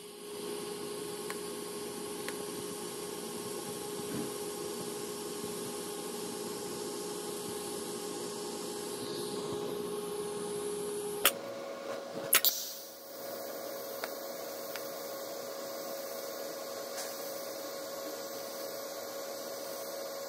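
TIG welding of stainless steel pipe: a steady electrical hum with a faint hiss. The hum breaks off about eleven seconds in with a few clicks, then resumes at a slightly higher pitch.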